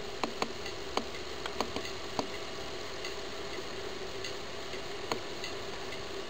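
The CD drive mechanism of an opened clock-radio CD player running: a faint steady whine under a hiss, with scattered light clicks, most of them in the first two seconds.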